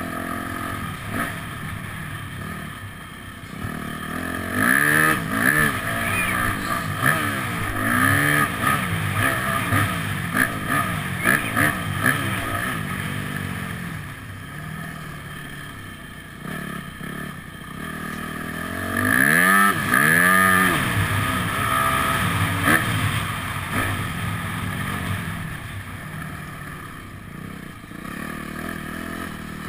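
Yamaha motocross bike's engine being ridden hard, its revs rising and falling in quick sweeps as the throttle is opened and closed. The loudest sweeps come between about five and twelve seconds in and again around twenty seconds.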